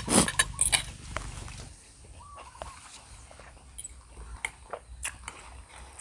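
Instant noodles being slurped, with several loud slurps in the first second, then softer chewing and light clicks of utensils.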